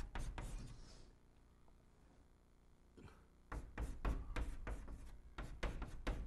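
Chalk writing on a blackboard: a quick run of sharp taps and scrapes from the chalk strokes, a pause of about two seconds, then the strokes resume for the second half.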